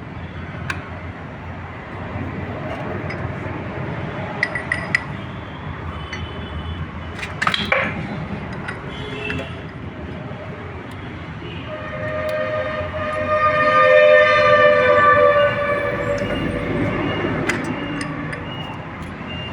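Scattered metallic clinks of tools and parts over steady background noise, then about twelve seconds in a loud horn with two close tones sounds continuously for around six seconds and slowly fades.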